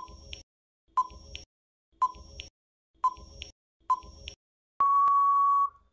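Quiz countdown timer sound effect: five short beeps, one a second, then a steady long beep of about a second that marks time up.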